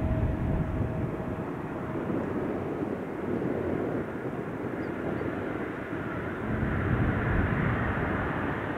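Boeing 777F freighter's GE90 turbofans running as the aircraft taxis, a steady jet rumble and hiss that swells slightly near the end.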